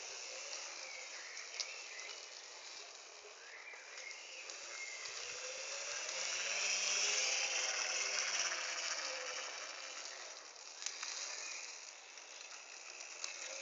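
A vehicle's hum rising and then falling in pitch, swelling to its loudest about halfway through and fading, over steady outdoor hiss.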